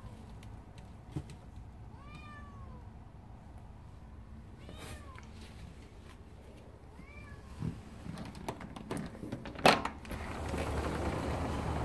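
A grey tabby cat meowing three times, each a short call that rises and falls, about two and a half seconds apart, heard through a closed glass balcony door. Near the end come a few clicks and one loud clack as the sliding door is opened, after which steady outdoor noise is louder.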